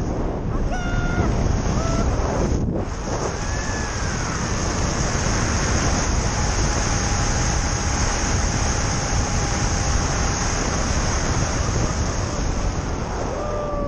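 Strong wind rushing and buffeting over the microphone of a pole-mounted camera on a paraglider in flight, a steady loud roar of air.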